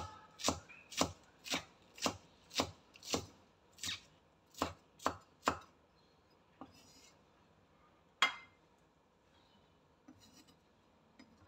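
Cleaver chopping spring onions on a cutting board, with steady strikes about two a second that stop about five and a half seconds in. A couple of single knocks follow, the sharpest about eight seconds in.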